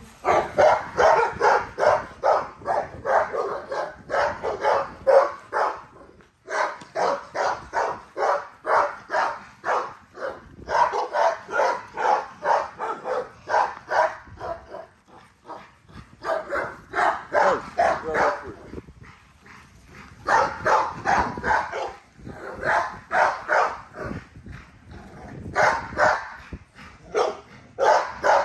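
An American bully barking over and over, about three barks a second, in long runs broken by short pauses.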